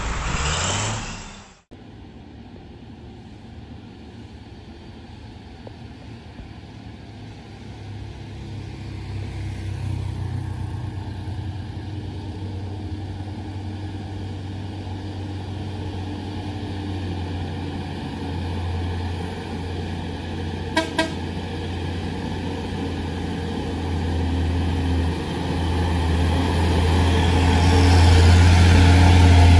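A loaded Hino dump truck's diesel engine labouring up a steep climb, growing steadily louder as it approaches and comes close. About two-thirds of the way through there are two short horn toots. The opening second or so is a snatch of music and voice that cuts off suddenly.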